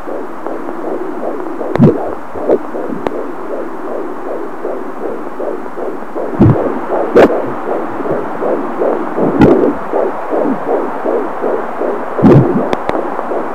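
Fetal heartbeat at 18 weeks gestation through an Angel Sounds handheld fetal doppler: a fast, steady whooshing pulse of about two to three beats a second. A few louder thumps and crackles break in now and then.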